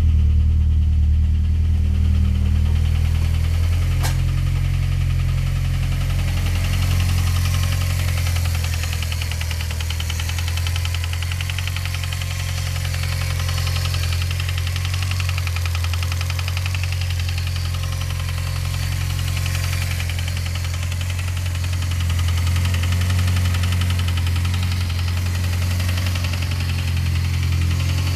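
The turbocharged 2.4 L G4CS four-cylinder in a 1990 Eclipse GSX idling steadily with a fast, even ticking. The owner blames the ticking on a piece of metal sucked in or dropped through a spark plug hole.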